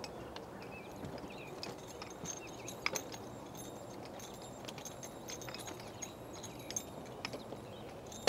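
Faint outdoor background noise with scattered light clicks and taps.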